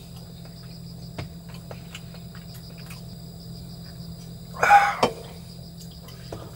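Crickets chirping steadily with a low hum underneath. About four and a half seconds in, a short loud breathy exhalation from a man who has just taken a drink, followed by a light click.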